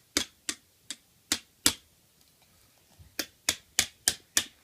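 Toy hammer tapping on toy nails and wood pieces: sharp taps about three a second, five of them, a pause of over a second, then five more.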